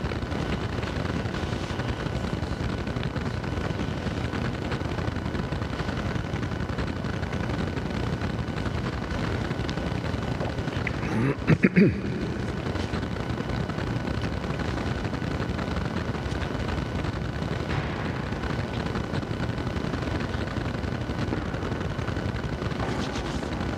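Steady background hiss and rumble of room noise, with a brief cluster of a few loud bumps about halfway through.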